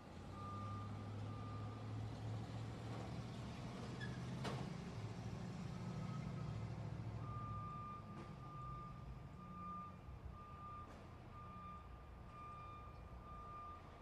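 Truck reversal alarm beeping: a single-pitch beep repeated at an even pace, a little under one a second, over the low running of the truck's engine. The beeps drop out for a few seconds in the middle, and there is a sharp clank about four and a half seconds in.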